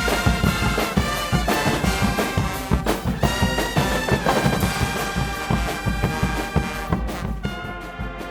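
Guggenmusik band playing loudly: a brass section of trumpets and trombones over a steady drum beat. It thins out and drops in level near the end.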